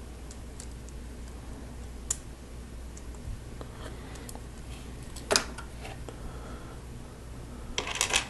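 Plastic Lego Technic pieces being handled and pressed together: scattered small clicks, a sharper snap about five seconds in and a quick run of clicks near the end, over a steady low hum.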